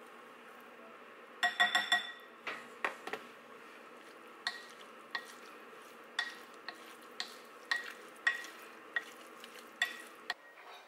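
Kitchen utensil clinking against cookware while stirring: a quick flurry of clinks about a second and a half in, then single ringing clinks about once a second, over a steady low hiss.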